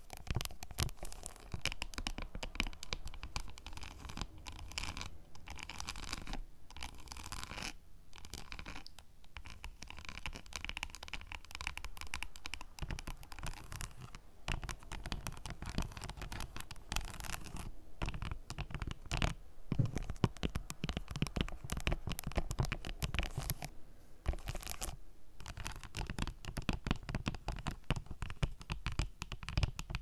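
Long fingernails rapidly tapping and scratching across the surface of dark chocolate bars, right at the microphone. The strokes come in quick flurries broken by a few brief pauses.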